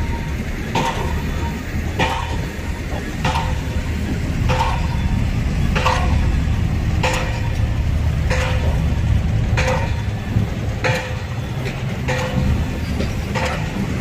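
Heavy construction machine's diesel engine running steadily, with a short, sharp, ringing sound repeating evenly about once every second and a quarter.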